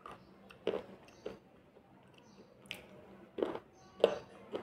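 Slate pencil chips crunched between the teeth while chewing. There are about six sharp, brittle crunches at irregular intervals.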